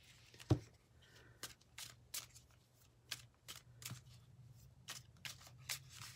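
A deck of oracle cards being shuffled and handled by hand: a run of light, irregular card flicks and slaps, with a sharper knock about half a second in.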